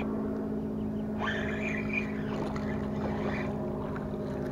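A motor running steadily nearby, a low even drone that holds the same pitch throughout, with a fainter wavering higher sound in the middle.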